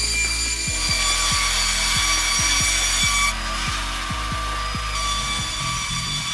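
Sawmill saw cutting through a log: a steady high-pitched whine that dulls for a second or so about three seconds in, then returns.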